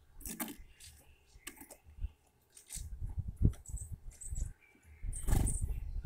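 Irregular sharp clicks and taps of an animal feeding in a seed tray, picking over seeds and shells, with bursts of low rumble on the microphone; the loudest burst comes about five seconds in, and a few brief high chirps sound around four seconds in.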